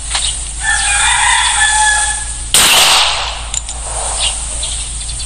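A rooster crows once, a single call of about two seconds, then a single loud pistol shot sounds about two and a half seconds in.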